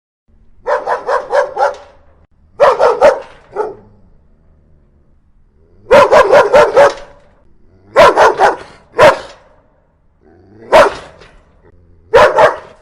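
Dog barking aggressively in quick volleys of several barks at a time, with short pauses between them; the longest run comes about six seconds in.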